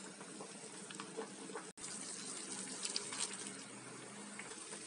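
Faint, steady bubbling of water at the boil in a steel pot where potato slices are blanching, with a few small ticks and drips. The sound cuts out briefly just under two seconds in.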